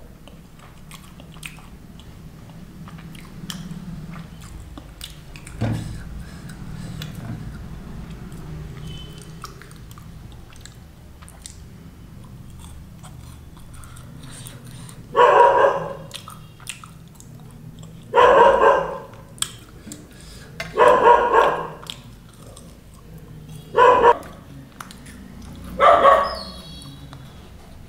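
Soft chewing and mouth clicks, then a dog barking about five times from midway on, one loud bark every two to three seconds.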